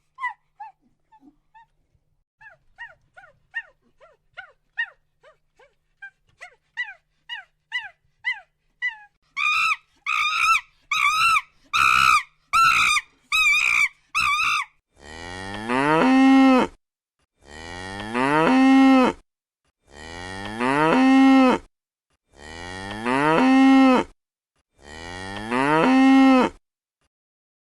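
Cow mooing five times in a row, long calls about two seconds apart, each rising in pitch and then holding. Before the moos comes a run of short, high-pitched calls from another animal, faint at first and growing louder.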